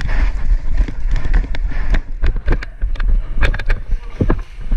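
Wind buffeting the microphone with a steady low rumble, under scattered sharp clicks and knocks that come thickest from about two seconds in.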